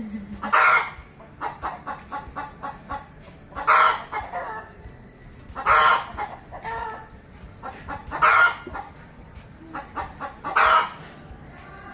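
Chicken cackling: rapid runs of short clucks, each ending in a loud squawk, five times about every two to two and a half seconds.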